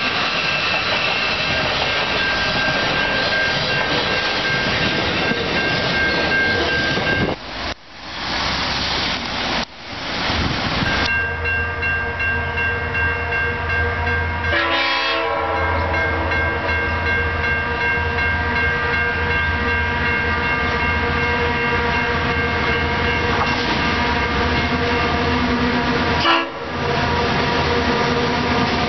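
Diesel-hauled trains: a freight train rattling past for the first several seconds, then after a couple of abrupt cuts the steady drone of an approaching GM-class diesel locomotive hauling a passenger train.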